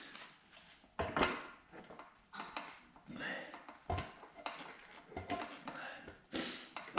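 Scattered metallic clinks and knocks from a Jaguar E-Type gearbox being worked by hand and with a tool as it is lined up to slide onto the engine's bellhousing, the sharpest about a second in and near the end.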